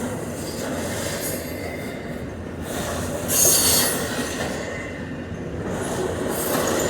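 Train cars rolling past with a steady rumbling noise, and a brief, loud, high-pitched burst about three and a half seconds in.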